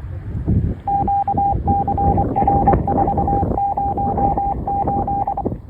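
Emergency radio traffic heard over a scanner: a rapid series of short high beeps, in groups with brief gaps, for about four and a half seconds over muffled, narrow radio noise.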